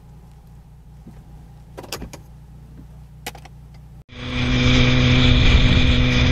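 A low, quiet in-car rumble with a few brief clicks, then an abrupt cut about four seconds in to a loud, steady rush of wind and engine drone from a motorcycle at freeway speed.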